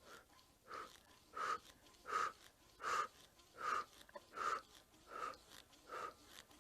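About nine short, breathy exhalations in an even rhythm, a little under a second apart, paced with repetitions of a resistance-tubing tricep extension. They grow louder towards the middle and ease off slightly near the end.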